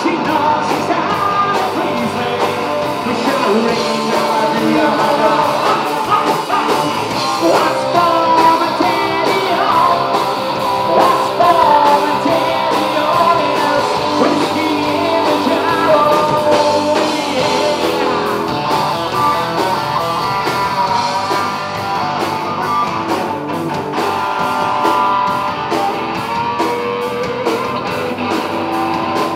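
Live rock band playing: a man singing over distorted electric guitar, bass guitar and a drum kit with steady cymbal and snare hits.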